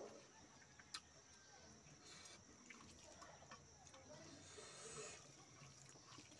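Near silence with faint eating noises as rice and fish curry are mixed and eaten by hand off a steel plate, and one sharp click about a second in.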